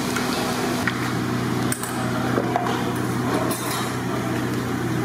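Steady low machine hum under a busy outdoor kitchen, with a few clinks and knocks of a ladle against large metal cooking pots.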